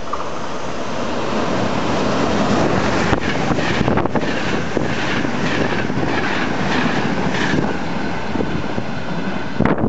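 Locomotive-hauled passenger train running through a station at speed. A rush of noise grows as it nears, then the coaches' wheels clatter over the rail joints, about two clicks a second, as the carriages pass. The sound changes abruptly near the end.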